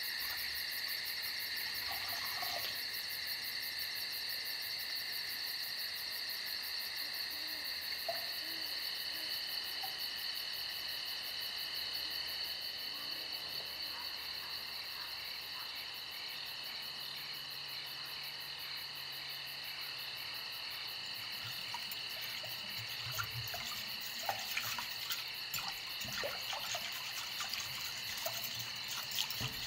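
A steady chorus of chirping insects. In the last few seconds, a wire whisk clicks and scrapes against a glass bowl as batter is beaten.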